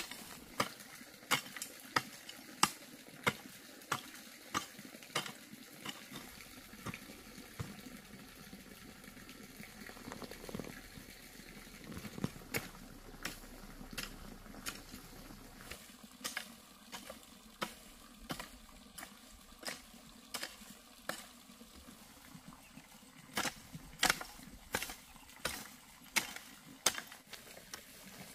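A hoe blade chopping into dry soil and weeds in a steady rhythm, a sharp strike about every half-second to second, with a sparser stretch in the middle.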